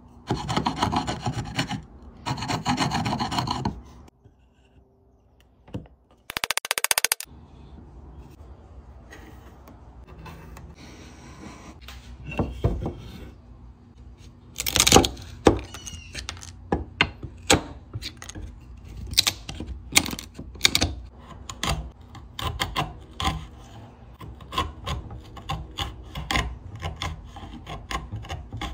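A wood chisel cutting softwood by hand: first two long scraping strokes, then a short dense burst, then a long run of sharp knocks and cracks as waste is chopped and pared out of a lap joint between saw kerfs.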